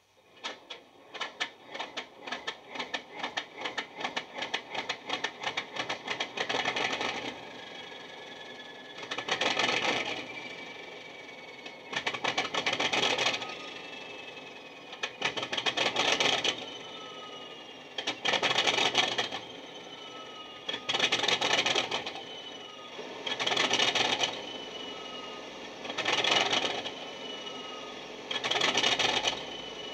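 Sound-decoder recording of a Class 37 diesel's long cold start, played through a model locomotive's small speakers. The engine turns over in fast, rhythmic cranking pulses that quicken for about seven seconds, then catches and runs unevenly, surging loudly about every three seconds with a falling whistle after each surge.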